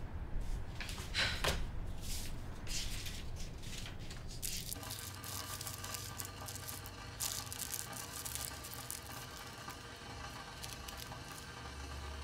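Soft paper rustling and crinkling in short strokes, later the crinkle of a cigarette rolling paper being rolled between the fingers. About five seconds in, a faint steady drone of several tones comes in beneath it.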